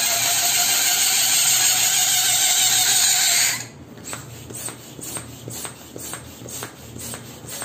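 Air rushing out of a latex balloon held pinched at the neck: a loud, steady hiss with a faint squeal, cut off suddenly about three and a half seconds in. Then a plastic hand balloon pump inflating a small balloon, about two strokes a second.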